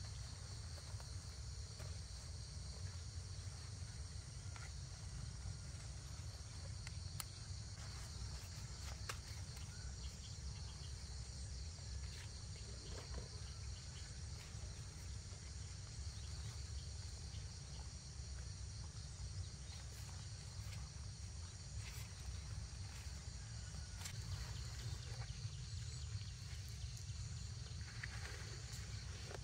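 Insects trilling steadily in a high, continuous chorus over a low rumble, with scattered faint clicks.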